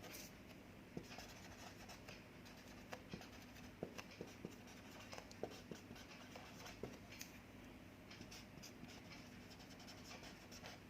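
Faint scratching of handwriting, with many small ticks and taps as the pen moves and lifts.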